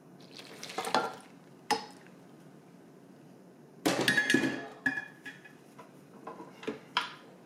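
Kitchen dishes and utensils clinking and knocking in a few separate bursts. The loudest burst comes about four seconds in and has a short metallic or glassy ring.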